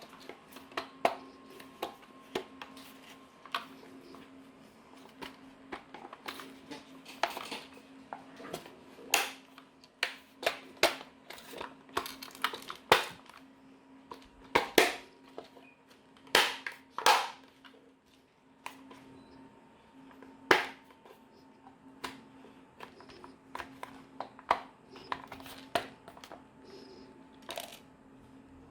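Irregular clicks, taps and crinkling as small plastic parts and wires of a toy bubble machine are handled during a repair, over a faint steady hum.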